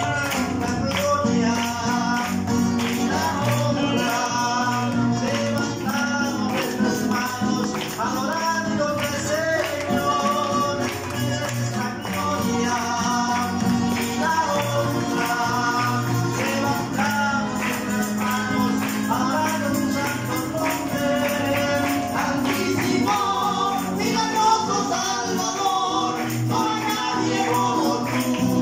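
Live Christian worship music: a male vocal duo singing to strummed acoustic guitars over a steady, jingling percussion beat.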